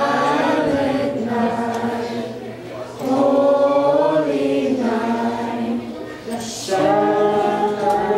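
A group of young carolers singing a Christmas carol together without accompaniment, in slow, held phrases. There are short breaks between phrases about three seconds in and again at around six and a half seconds.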